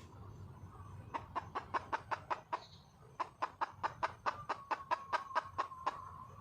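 Red junglefowl hen clucking in two quick runs of about six clucks a second, with a steady held note under the second run: a wild hen calling for a mate.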